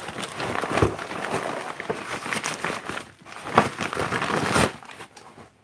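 Packaging rustling and crinkling as it is handled, with a few louder knocks among it.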